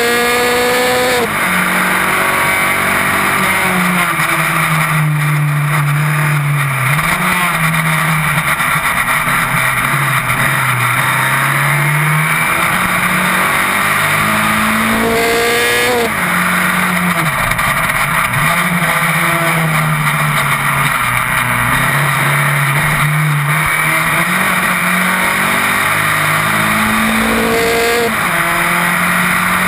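Single-seater racing car's engine running hard at racing speed, heard from on board. The revs climb and fall with gear changes, with sharp rises just after the start, about halfway and near the end, over a steady rushing noise.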